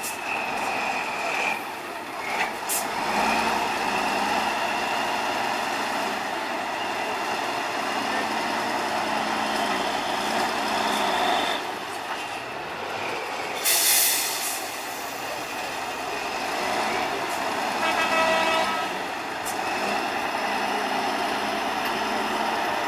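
Tatra 815 8x8 truck's diesel engine running steadily as the truck crawls over sand heaps, with a high whine over it. A short hiss comes a little past halfway, and a brief buzzy tone near the end.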